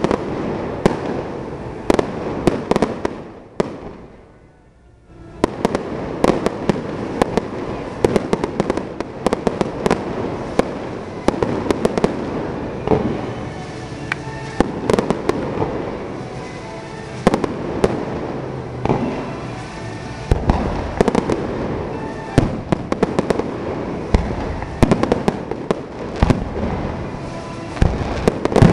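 Aerial fireworks display: rapid, overlapping bangs of bursting shells with crackle in between, and a brief lull about four seconds in.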